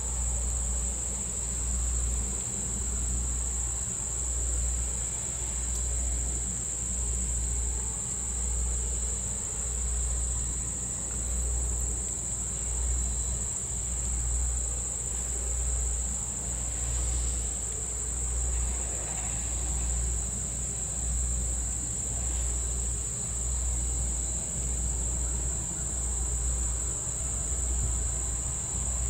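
Insects droning steadily at a high pitch, over a low throb that pulses about once a second.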